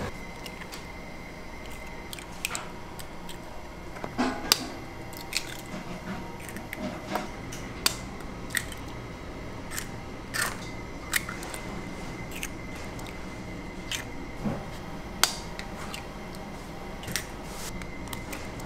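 Eggs cracked by hand one after another, their shells breaking with short, sharp cracks at irregular intervals, about one every second.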